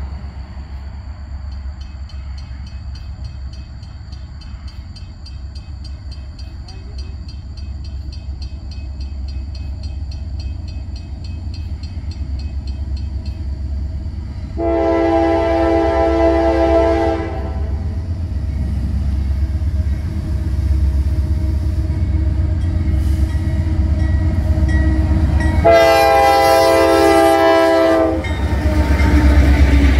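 Diesel freight locomotive approaching with a low rumble that grows steadily louder. Its air horn sounds two blasts of about two and a half seconds each, one about halfway through and one near the end as the locomotive draws close.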